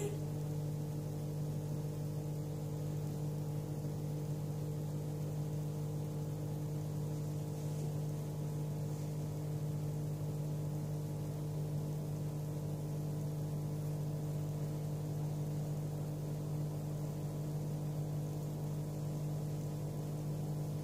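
A steady low hum with several overtones above it, holding one unchanging pitch, over a faint hiss.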